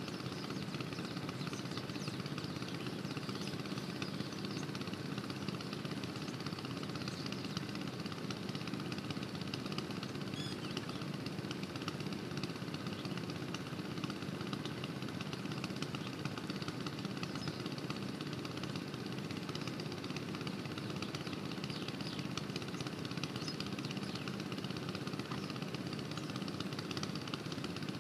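Kirloskar 5 hp water-pump engine running steadily at an even speed.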